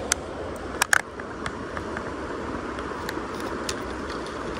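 Steady rushing of a small rocky stream flowing over stones, with a few sharp clicks in the first second or so.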